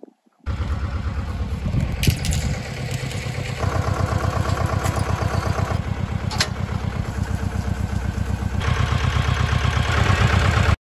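Small tractor's engine running steadily while it pulls a cultivator through garden soil. It grows louder a little after three and a half seconds and again near the end, with a couple of short clanks along the way.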